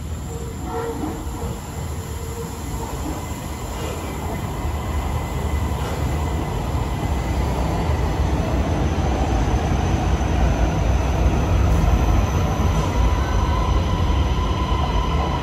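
MRT Kajang Line metro train pulling into an elevated station platform. Its rumble grows steadily louder as it approaches and passes close by, and a steady high whine joins in over the second half as it slows.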